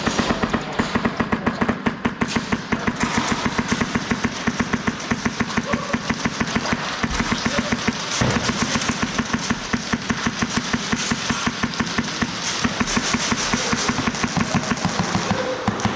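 Airsoft rifles firing almost continuously in fast full-auto bursts, a rapid string of sharp cracks with a short break about eight seconds in.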